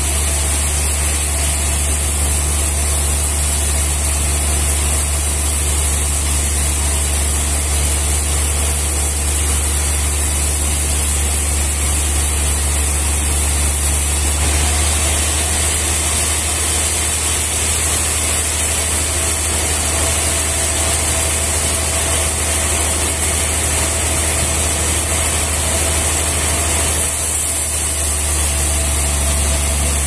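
Large band sawmill running steadily, a loud low hum under a steady high hiss.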